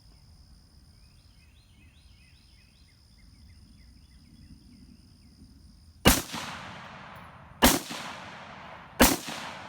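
Quiet outdoor background with faint bird chirps, then three rifle shots from an AR-15, spaced about a second and a half apart, each with a long echoing tail.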